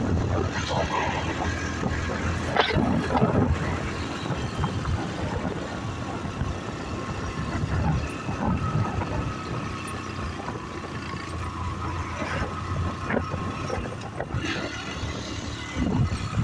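Steady running drone of a moving vehicle's engine with road and wind noise while riding along a road. A couple of sharp knocks come about three seconds in.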